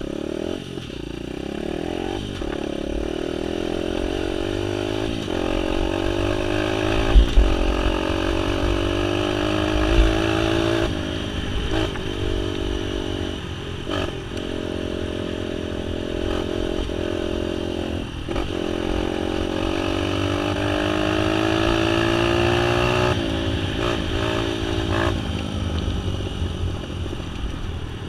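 Small off-road vehicle engine running under load on a rough trail. Its pitch rises and falls with the throttle and dips briefly several times. A couple of heavy thumps come about seven and ten seconds in.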